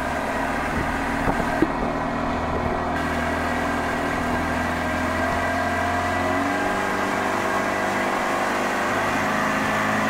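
Motorboat engine running steadily at cruising speed, its hum shifting slightly in pitch about six and a half seconds in, over a steady rush of noise.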